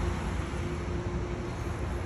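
Tour boat running steadily under way: a constant low rumble with a faint steady hum.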